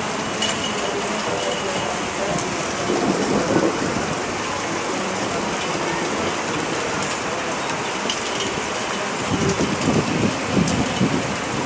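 Heavy rain pouring down in a steady dense hiss. It swells rougher and louder about three seconds in and again over the last couple of seconds.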